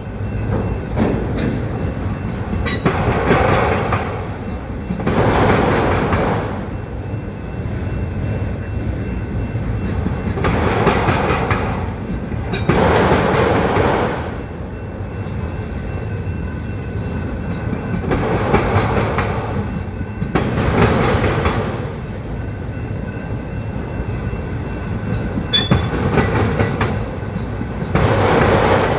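Autorack freight train rolling slowly past. The wheels clatter over the rail joints in loud pairs about every eight seconds as each car goes by, with a brief wheel squeal near the end.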